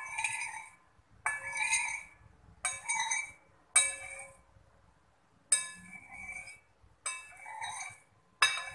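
A metal spoon cuts through set jelly and clinks against the bottom of a ceramic bowl. It sounds as a sharp clink with a short ring about every second and a half, seven times.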